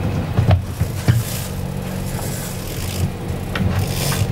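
Boat engine running steadily at low speed, with a few sharp knocks and short scrapes of gear being handled.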